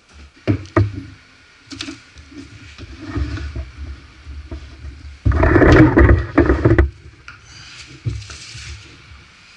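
Scattered knocks and handling sounds on a plywood workbench, then about a second and a half of loud scraping and rumbling as the homemade silent air compressor on its small tank is slid across the wooden bench top.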